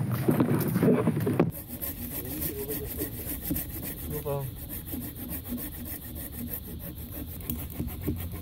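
Hand pruning saw cutting through a fallen log for firewood, with quick, even back-and-forth strokes of the blade through the wood, starting about a second and a half in.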